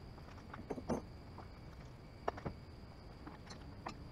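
A handful of light knocks and clicks from the MaxxHaul hitch-mounted crane and the generator hanging from its chain as the boom is swung in over the truck bed, the sharpest about two seconds in.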